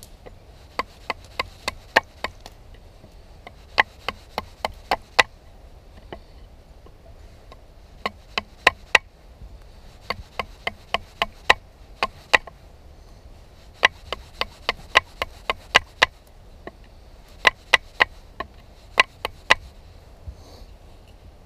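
A Delta Whiskey Farnhawk knife's 80CrV2 steel blade chopping down into an upright green stick held on a wooden stump, each stroke a sharp crack as it bites in and splits off a chip. The strikes come in runs of several, about two or three a second, with short pauses between runs.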